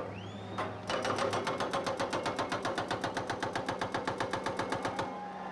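Excavator-mounted hydraulic breaker hammering concrete, a rapid even rattle of about nine blows a second. It starts about a second in and stops near the end.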